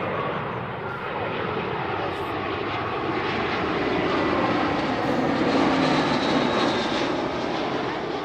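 Airliner on final approach passing low overhead, its engine noise swelling to loudest about six seconds in, with a whine that falls in pitch as it goes by.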